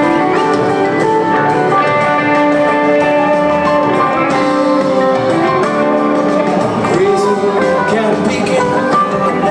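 Rock band playing live through a PA: electric guitars, an acoustic guitar, bass and drums in a steady groove, heard from the crowd.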